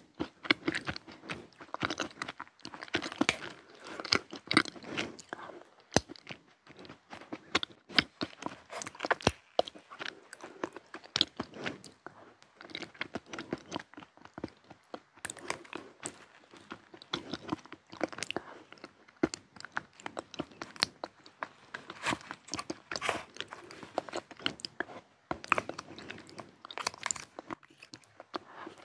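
Close-miked chewing with many crisp crunches and crackles, a person eating crunchy chocolate snacks and chocolate pudding, with the occasional scrape of a plastic fork scooping pudding from its plastic cup.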